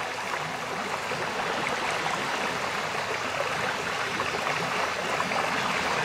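Steady rushing water noise, an even hiss without pitch or rhythm.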